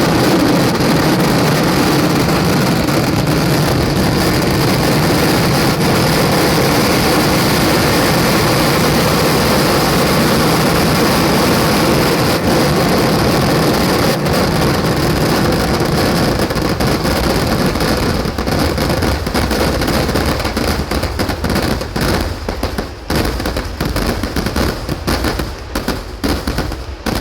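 Fireworks going off in a dense, unbroken volley of explosions, breaking up into rapid separate bangs in the last several seconds.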